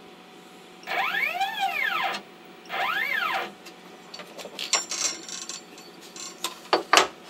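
CNC router's stepper motors whining through two quick moves of the gantry, each rising then falling in pitch as the axes speed up and slow down. These are followed by a scatter of short clicks and knocks.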